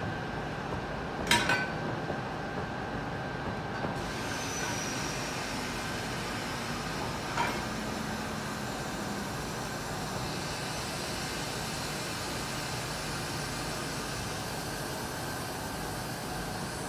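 EP2K electric locomotive standing at the platform, running steadily with a faint high whine. There is a sharp metallic clank about a second in and a weaker one about seven seconds in. A steady hiss joins at about four seconds.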